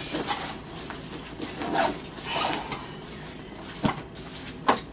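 Clothing and gear being handled, with soft rustling and two sharp clicks near the end.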